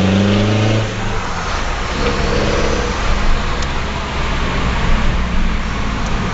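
Ford Mondeo TDDi four-cylinder diesel engine running through a straight-through turbo-back exhaust with no silencers: revved, dropping back about a second in, then running on at a lower, rough note with a brief blip of revs shortly after.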